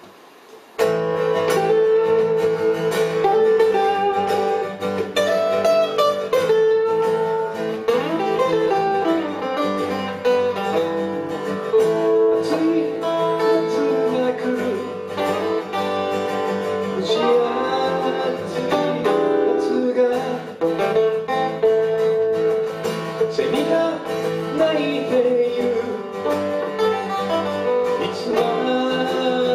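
A small live band starting a song about a second in: acoustic and electric guitars played through a PA, with a man singing.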